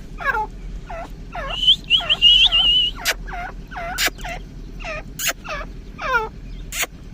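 Several teetar (francolins) calling, short repeated swooping notes about two a second. A wavering high whistle runs for about a second and a half near the start, and a few sharp clicks come in the second half.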